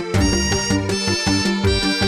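Background music with a steady beat and a repeating bass line under a melody.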